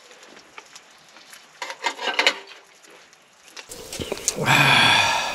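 A man's drawn-out wordless vocal sound, loud and held about a second, near the end. Before it come faint scattered clicks and taps.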